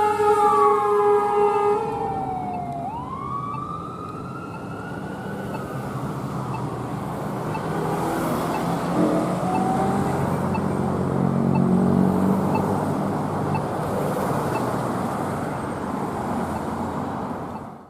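Fire rescue truck's air horn blasting, ending about two seconds in, followed by its siren gliding down and back up once before fading under road noise. A low heavy-engine rumble swells around ten to twelve seconds in, and the sound cuts off abruptly at the end.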